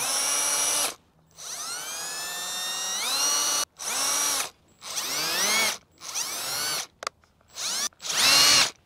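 Power drill boring small holes through a heater deflector, run in about eight short spurts. Its motor whine climbs as it spins up and drops away each time the trigger is released, and the last spurt is the loudest.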